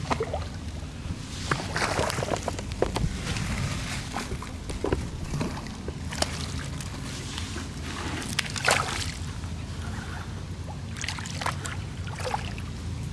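A hooked catfish thrashing and splashing at the water's surface as it is reeled in, in irregular splashes throughout, over a low steady hum.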